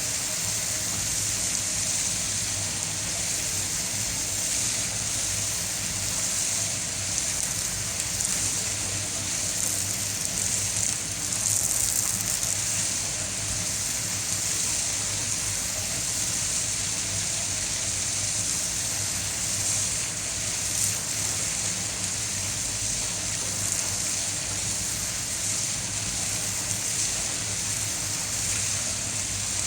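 Steady rush of water in the clarifier/filter tank, with a constant low hum underneath.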